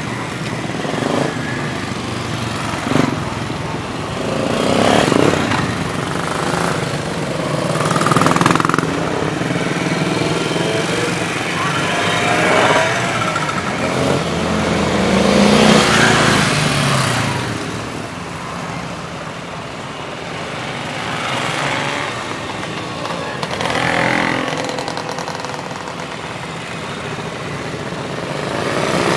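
Vintage motorcycles setting off one after another, each engine's sound swelling and then fading as it passes, several times over, with more engines running in the background.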